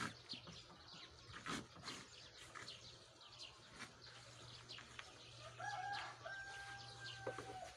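A rooster crowing once, faintly, near the end: a few short notes, then one long held note.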